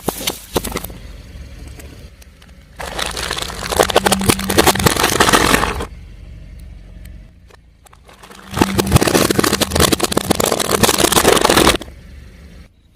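A car tyre rolling over and crushing crunchy objects: two long crackling crunches of about three seconds each, full of fine snaps, with the car's low running sound between them.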